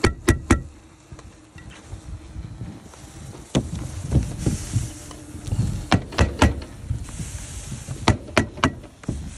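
Pneumatic stapler fastening synthetic roof underlayment to the OSB deck: about ten sharp shots, mostly in quick runs of three. Between the runs the underlayment rustles as it is rolled out.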